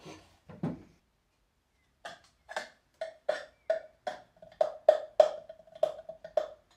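Plywood shelf box being handled: two thumps near the start, then after a short pause a run of hollow knocks on the wood, about three a second, each with a brief ringing tone.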